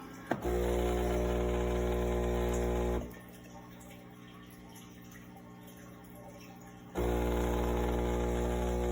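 Philips super-automatic espresso machine's pump running with a steady low buzzing hum. A click starts it, it stops after about two and a half seconds, and it starts again about seven seconds in.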